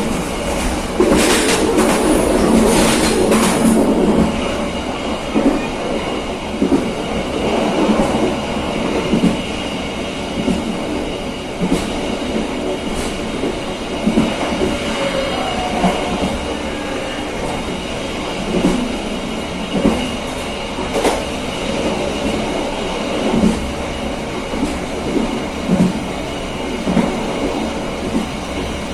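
KA Serayu passenger train running along the track, its wheels clacking over rail joints with a steady rumble. There is a louder, harsher stretch between about one and four seconds in.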